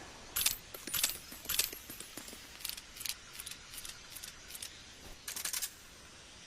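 Colt single-action revolver's action being worked between shots: a series of sharp metallic clicks and light clinks, irregularly spaced, with a quick cluster of clicks near the end.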